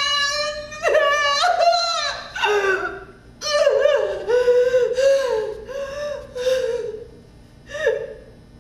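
A woman's exaggerated, acted wailing and sobbing without words: drawn-out high-pitched cries, then a long run of short quavering sobs, and one last short cry near the end.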